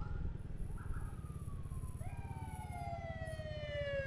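Emergency vehicle siren wailing: each wail jumps up quickly and then slides slowly down in pitch, several times over. Beneath it runs the low rumble of a motorcycle engine and road noise.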